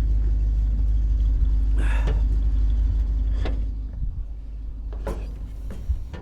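Tractor diesel engine running with a steady low rumble, dropping in level about four seconds in, with a few short knocks over it.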